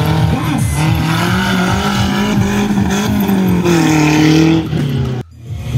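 Off-road tubular buggy's engine running hard under throttle, its pitch holding fairly steady and then rising and falling near the end. The sound cuts off suddenly about five seconds in.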